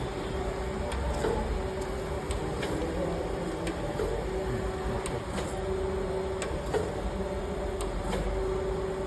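Perfect PFG-4080 AH surface grinder running with its table traversing back and forth on automatic: a steady hum broken by a short knock at each table reversal, about once every second and a bit, with occasional sharp clicks.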